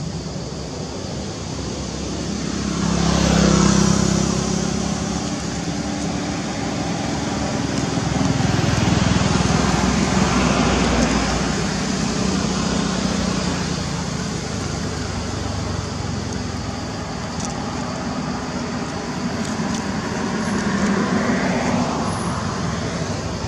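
Road traffic: motor vehicles driving past, the sound swelling and fading away three times.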